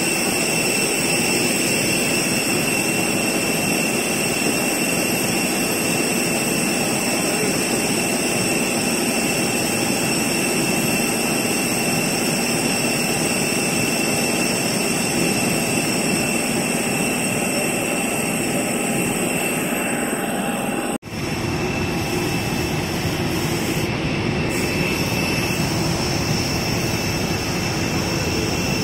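Jet aircraft running on the apron: a loud, steady rushing noise with several high-pitched whining tones held throughout. The sound cuts out for an instant about three-quarters of the way through, then resumes unchanged.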